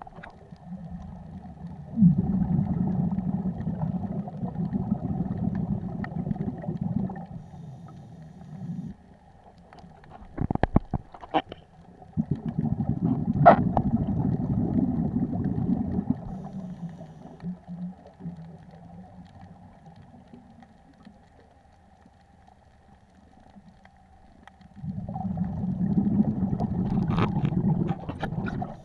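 Scuba regulator exhalations heard underwater: three long bubbling rumbles, each about five seconds, roughly ten seconds apart, with quieter stretches between. A few sharp clicks in the middle and near the end.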